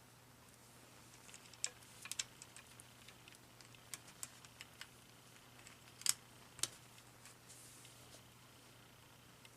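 Scattered light plastic clicks and taps from handling the parts of a Panasonic KX-TG5453 cordless phone handset during reassembly, with the sharpest clicks about a second and a half in and around six seconds in. A faint steady hum sits underneath.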